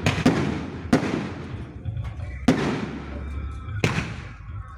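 Fireworks going off: four sharp bangs a second or so apart, each trailing off into a fading echo.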